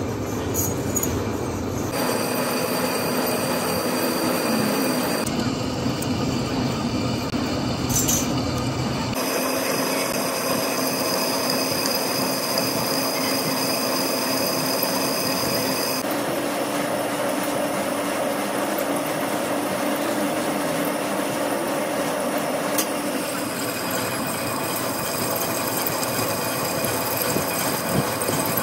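Machine-shop noise of steel being machined: a steady, noisy cutting sound with held high squealing tones over a lower hum, changing abruptly several times.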